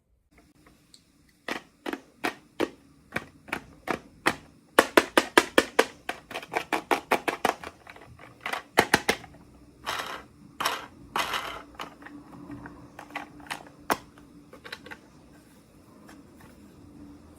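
Small plastic toy packaging being handled and opened, giving a series of sharp clicks and taps. The taps quicken to a rapid run of several a second about five seconds in, and a few longer rustles come around ten seconds in.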